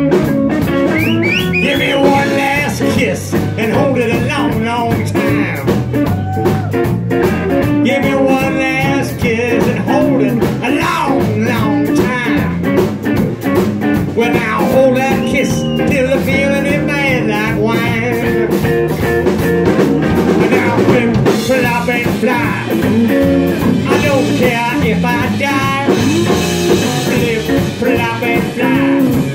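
Live blues-rock band playing at full volume: electric guitars, bass and drum kit, with a lead guitar line of wavering, bent notes over the band.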